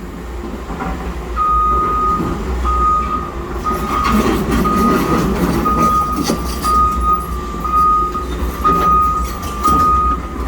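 Reversing alarm on road-construction equipment beeping about once a second, starting a little over a second in, over the steady low rumble of the machine's engine.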